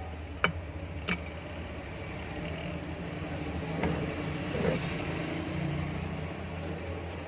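Two light clicks as the exhaust fan motor's back cover and parts are handled, over a steady low rumble.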